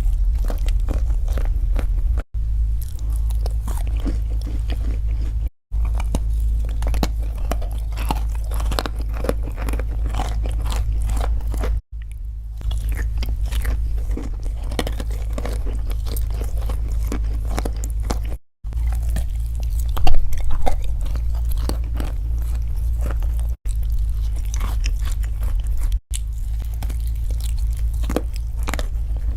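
Close-up crunching and chewing of crisp food, with dense irregular crackles throughout and a steady low hum underneath. The sound cuts out briefly several times.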